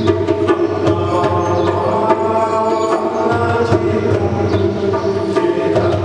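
Liturgical music: voices singing a hymn over hand drums beating a steady rhythm.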